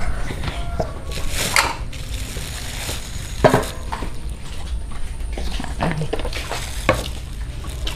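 Ladle and spoons clinking and scraping against a pot and bowls as rice porridge is dished out, with a few sharper knocks, the clearest about three and a half seconds in.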